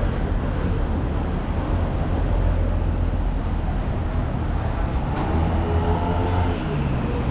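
Outdoor city ambience on a walk: a steady low rumble, with a person's voice briefly about five seconds in.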